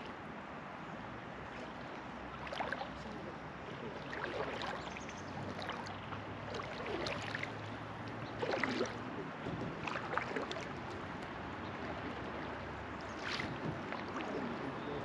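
River water running around a floating raft, with short splashes and laps against the raft every second or two.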